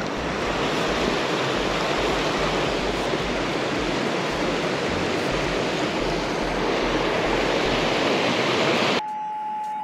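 Steady rush of flowing water, with low rumbling buffets of wind on the microphone. It cuts off abruptly about nine seconds in, and a short steady electronic beep follows.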